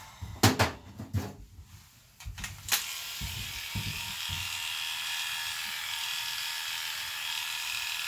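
A few sharp knocks, then about three seconds in, cordless electric pet clippers start and run with a steady hum as they are worked through an Airedale terrier's coat.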